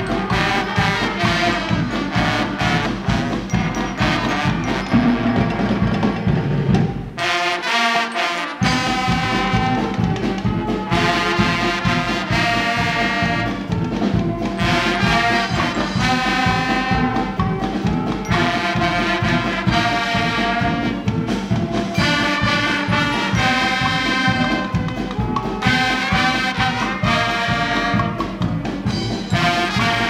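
A Guggenmusik carnival band playing loudly: trumpets, trombones and saxophones over a steady drum beat. About seven seconds in, the drums and low brass drop out for a moment before the full band comes back in.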